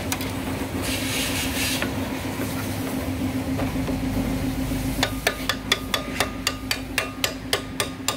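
Hammer tapping metal on a motorcycle's front drum brake hub, quick even blows about four a second with a slight ring, starting about five seconds in. Before the taps, a steady low hum.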